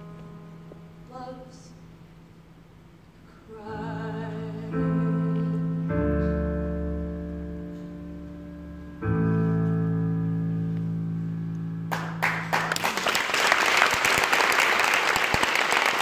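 Closing chords of a song's piano accompaniment, held and slowly fading, then audience applause breaks out about twelve seconds in.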